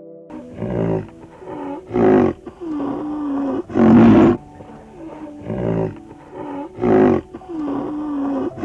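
An animal calling loudly again and again, a short harsh call about every one and a half seconds, with softer, longer calls between them that dip and rise in pitch.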